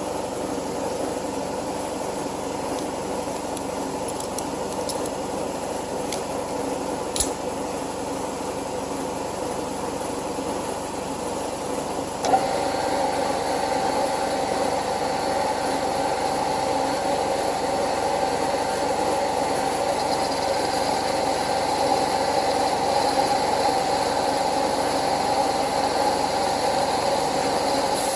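Metal-working machine running steadily with a single sharp click about seven seconds in. About twelve seconds in the sound steps up and a steady higher ringing tone joins as the rotating cutter bites into the steel face of the model locomotive boiler.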